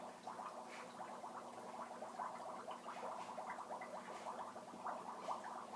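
Dry ice bubbling in a bowl of water: a faint, continuous gurgle of many small irregular pops.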